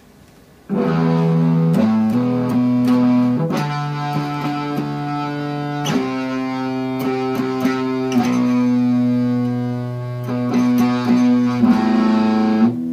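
Electric guitar played through a breadboarded Badass Distortion fuzz circuit with an opposing pair of clipping diodes (one pointing up, one pointing down): a string of held distorted chords, changing every couple of seconds. The tone copes with no more than two notes at a time but brings out some interesting harmonics in the middle.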